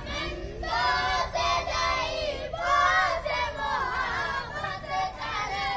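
Boys' voices chanting a dua (Islamic supplication prayer) aloud in a sing-song recitation, line after line.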